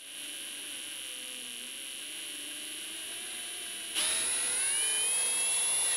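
Drill motor whining steadily as it slowly drives a 1/4-20 tap through a pilot hole, cutting threads in a table saw fence. About four seconds in the whine gets louder, its pitch rising and then falling.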